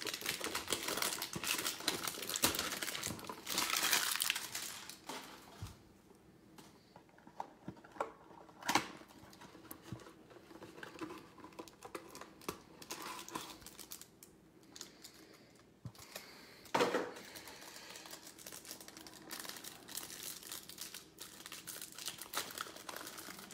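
Hands crinkling and tearing open the plastic and cardboard packaging of a trading-card hanger box. The crinkling is thick for the first few seconds, then lighter, with sharp rips about nine seconds in and again near seventeen seconds.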